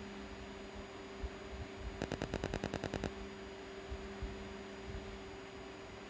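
Steady electrical hum from the powered-up microwave test bench equipment. About two seconds in comes a quick run of about ten clicks lasting roughly a second.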